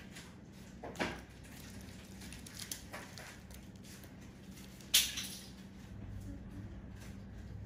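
Faint room sound with a steady low hum, broken by a few short clicks or knocks; the sharpest comes about five seconds in.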